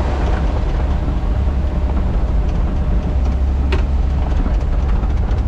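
Tracked digger's diesel engine running steadily as the machine tracks along, heard from inside its cab, with a single knock near the middle. It is tracking at slow speed because its high-speed tracking has failed.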